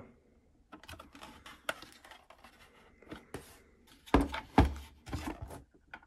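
Handling noise from a Ryobi cordless inflator and its Makita battery on the adapter: scattered light plastic clicks and rattles, with two heavier knocks a little after four seconds in.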